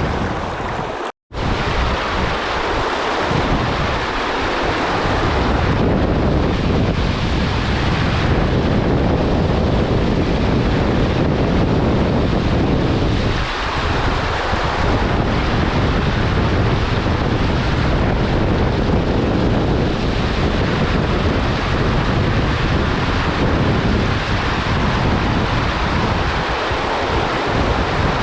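Fast river water rushing steadily, with wind buffeting the microphone. The sound cuts out for a split second about a second in.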